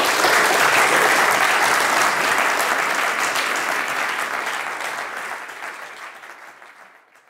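Audience applauding, a dense patter of many hands clapping that holds steady for a few seconds and then fades away.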